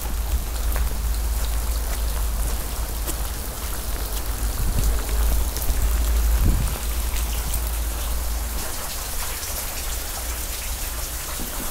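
Steady rain falling, with many individual drops ticking on hard surfaces close by. A deep rumble runs underneath and stops about three-quarters of the way through.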